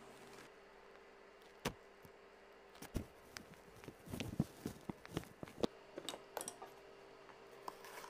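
Faint, irregular light clicks and taps from handling food-prep gear: scattered at first, then thick from about four to six and a half seconds in, over a steady faint hum.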